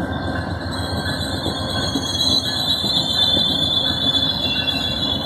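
Amtrak Southwest Chief's bilevel Superliner passenger cars rolling past a station platform as the train slows to a stop, with a steady rumble of wheels on rail and a steady high brake squeal over it.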